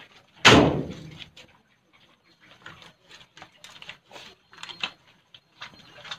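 Hands scrubbing soap into a wet cat's fur: a run of short, faint wet crackles and squelches. A single loud sudden noise about half a second in stands out above them.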